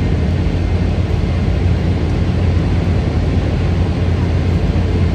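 Boeing 717 jet airliner's two rear-mounted Rolls-Royce BR715 turbofans running, heard as a steady, unbroken rush with a low hum underneath.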